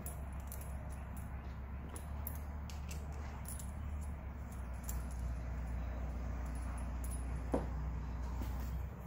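Light metallic clicks and small rattles, like metal parts being handled, over a steady low hum, with one sharper click about seven and a half seconds in.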